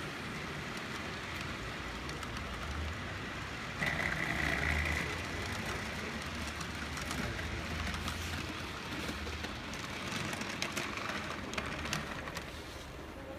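Model train running on the layout track: a steady rolling rattle of wheels and motor, swelling into a louder, higher whir for about a second about four seconds in, with scattered sharp clicks later on as the wheels cross rail joints.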